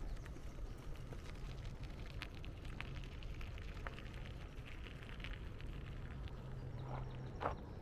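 Riding noise from a bicycle: a steady low rumble of wind on the microphone with scattered light crackling ticks, and a sharper click near the end.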